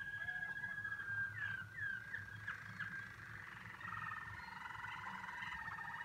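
Canary singing: a long held whistle, then a few quick slurred notes, then from about four seconds in a fast, rolling trill.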